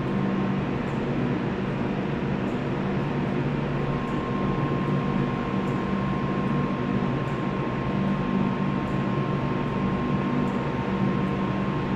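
Steady machinery hum with several low droning tones, joined about four seconds in by a faint high whine.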